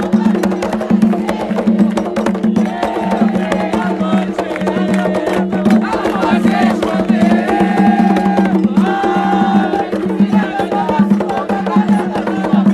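Atabaque hand drums beaten with the palms in a quick, driving rhythm, with voices singing a ponto (devotional chant) over them in held, wavering notes through the middle.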